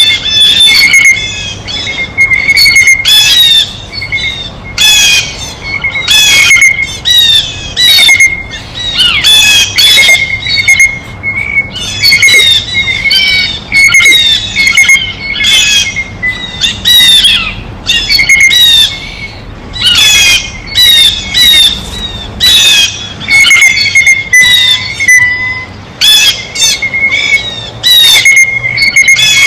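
Blue jays giving their loud jay calls over and over, about one call every second.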